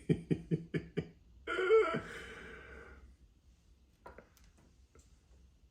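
A man's non-speech vocal sounds: a quick run of about six short bursts in the first second, then one longer, louder voiced sound that trails off into breath. A few faint clicks follow near the end.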